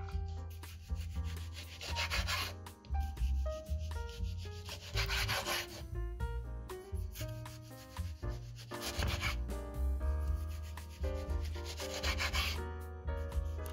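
Kitchen knife sawing through ripe tomatoes against a wooden cutting board, a few drawn-out rasping strokes, over background music with held notes and a steady bass.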